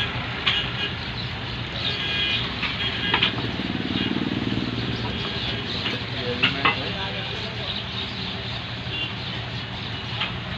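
Scattered metal clicks and taps of tools on a sandwich toaster's casing as its bolts are undone, the sharpest pair about six and a half seconds in, over steady traffic noise and background voices.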